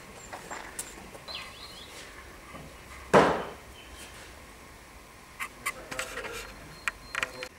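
One loud wooden knock with a short ringing tail about three seconds in, then a scatter of lighter knocks and clicks near the end.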